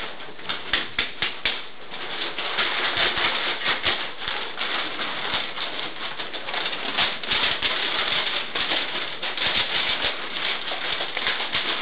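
Steady rustling with many short clicks, from a small group moving about a room: shuffling footsteps, clothing and paper, with handling noise from a handheld camera.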